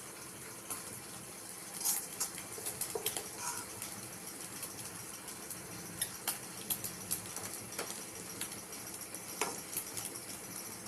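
Kitchen utensils clinking and knocking against cookware in scattered short clicks, over a steady hiss.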